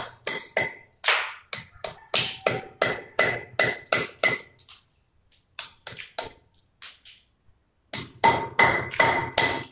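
Hand hammer striking metal in quick repeated blows, about three a second, each with a short bright metallic ring. The blows thin out and pause about halfway through, then pick up again near the end.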